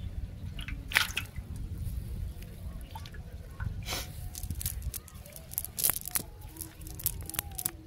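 Small fish being picked out of a wet cast net and dropped into a metal plate: a few sharp, wet slaps and clicks, one about a second in, one at four seconds and several near the end, over a steady low rumble.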